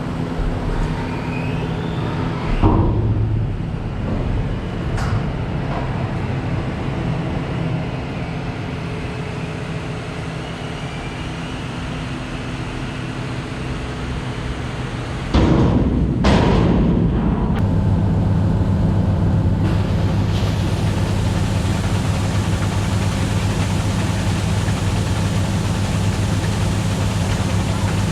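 Diesel engine of harvest machinery running steadily. About halfway through it changes suddenly to a louder, steady engine note.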